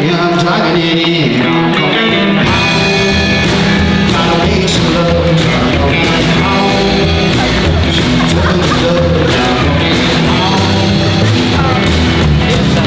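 Rockabilly band playing with a singer: upright double bass, drums and electric guitar.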